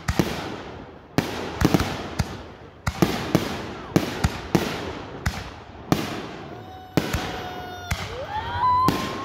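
Consumer firework cake firing shot after shot, each shell bursting overhead with a sharp bang, about one every half second to a second. A long, high held tone sounds over the bangs near the end.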